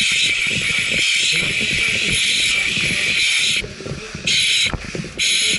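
Loud hissing of air in long bursts: one lasting about four seconds, then two short ones near the end, with brief gaps between. Beneath it, rustling and knocking of gear.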